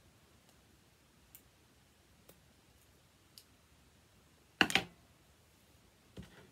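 Handling noise while hand-sewing: a few faint clicks, then a louder double click about four and a half seconds in and a smaller knock near the end.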